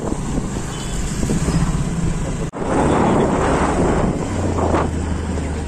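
Wind rushing over the microphone with a vehicle's engine running while travelling along a rough village road, with a steady low engine hum from about four seconds in. The sound breaks off briefly about two and a half seconds in.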